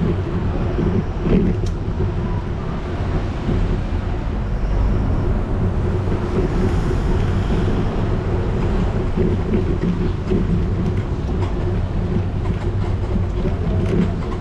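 Bicycle tyres rolling over paving stones and tiles, heard through a camera mounted on the bike as a steady rumble and rattle with occasional small clicks.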